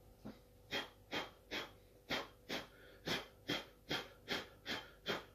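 Quick, repeated puffs of breath, about a dozen at two to three a second, blowing loose static-grass flock off a freshly flocked figure.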